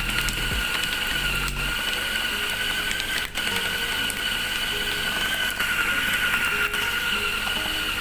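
Electric food chopper running, grinding beef and seasonings into meatball paste: a steady high motor whine that cuts off near the end.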